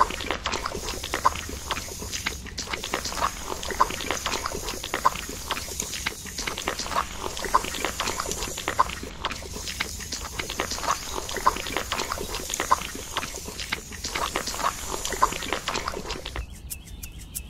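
Small hand rake scraping and squelching through wet mud, a quick irregular run of short strokes. Near the end it gives way to a short run of evenly spaced ticks.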